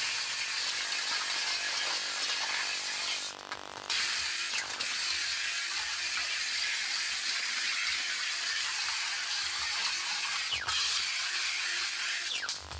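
Cordless stick vacuum cleaner running: a steady rush of air with a thin high motor whine. It cuts out for about half a second a little over three seconds in, dips briefly near ten and a half seconds, and switches off shortly before the end.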